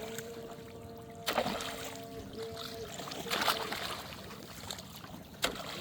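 A small engine running steadily, with three sharp knocks or splashes cutting through it.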